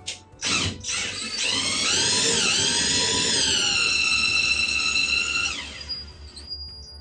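Cordless DeWalt drill driving a screw through a grab bar's mounting flange into the shower wall. A couple of short trigger blips come first, then a steady motor whine of about four seconds that dips briefly in pitch as it takes load, before stopping.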